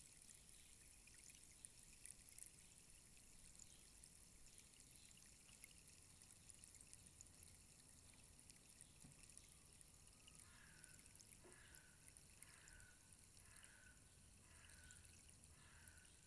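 Faint, steady hiss of a tall rainstick's fill trickling down inside it as it stands upright, a fine, even pouring sound.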